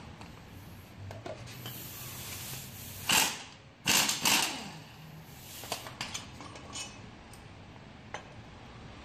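Pneumatic impact wrench loosening 14 mm bolts on a car's upper control arm, fired in two short bursts about three and four seconds in, the second one longer. A few light knocks follow.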